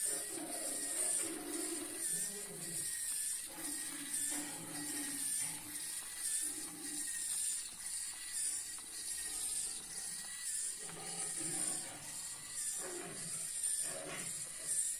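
Small electric motor driving the 3D-printed plastic and wooden gear train of a lion automaton. Its thin whine wavers up and down in pitch in a regular cycle, over the ticking and clatter of the gears and linkages.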